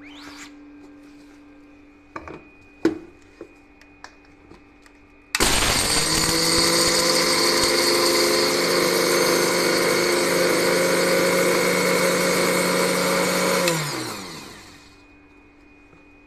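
Electric mixer grinder powdering sugar in its steel jar: a few clicks as the jar is set on the base, then the motor starts suddenly about five seconds in and runs steadily for about eight seconds. It then winds down with a falling pitch as it is switched off.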